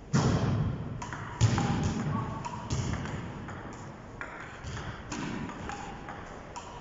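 Table tennis rally: the celluloid ball clicking off rubber paddles and the table top, about a dozen sharp, irregular hits, a few each second.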